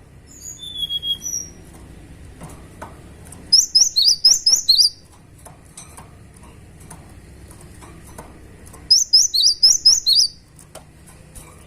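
Cinereous tit (gelatik batu) singing in vigorous bursts. Each burst is a rapid run of six or seven sharp, high notes lasting about a second and a half, and there are two of them. A few thinner whistled notes open the passage.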